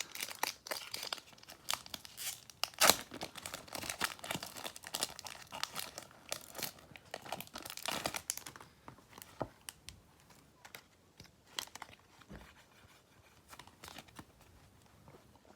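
Crinkling and rustling of a foil trading-card booster pack wrapper and the cards inside being handled. It is dense crackling for about eight seconds, then a few scattered rustles and clicks that die away near the end.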